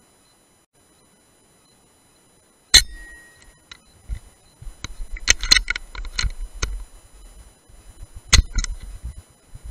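Two sharp cracks from a .177 PCP air rifle firing, about three seconds in and again near the end, with metallic clicks and knocks of the rifle being handled and cocked between them.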